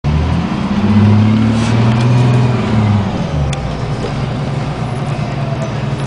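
Detroit Diesel 6V92TA two-stroke V6 turbo diesel of a 1994 New Flyer D40 bus running under way, heard from inside the passenger cabin. Its note is strongest in the first few seconds, then steps down and quietens about three seconds in.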